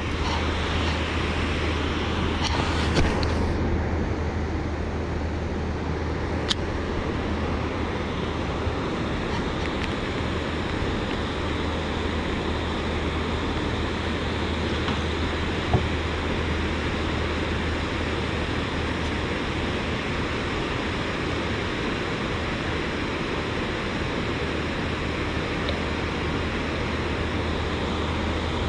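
Steady rushing outdoor noise of wind and water over open water, with a brief brighter hiss about three seconds in and a couple of faint sharp ticks.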